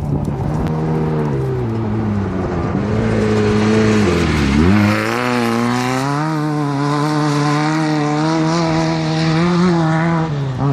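Off-road race vehicle engine running hard. Its note dips sharply about halfway through, then climbs back and holds steady.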